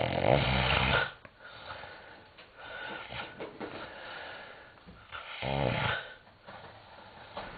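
A man snoring: two loud, rattling snores about five seconds apart, each lasting about a second, with softer breathing between them.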